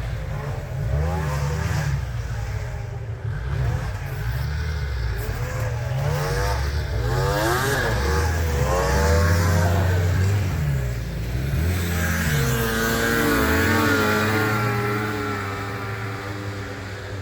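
Snowmobile engines revving hard as sleds race past, their pitch rising and falling again and again, with more than one engine heard at once. A steadier engine note takes over about three-quarters of the way through, then fades near the end.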